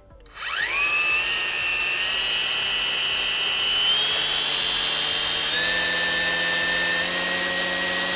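Worx WG186 battery string trimmer's brushless motor spinning up on the variable-speed trigger, its twin-line head spinning: a quick rising whine about half a second in that settles into a steady high whine, running in ECO mode, with a slight shift in pitch a little past halfway.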